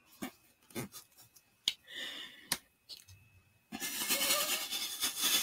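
A caller's long, rough burp heard over a phone line, starting near four seconds in, after a few faint clicks and a shorter rasp about two seconds in.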